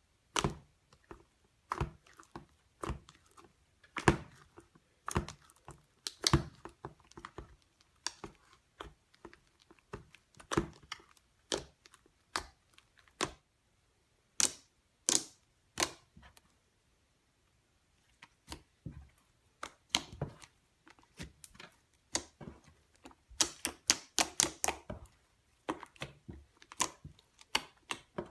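Thick, glossy blue slime being pressed, poked and folded by hand, giving irregular sticky clicks and pops, some in quick clusters. There is a pause of about two seconds just past the middle.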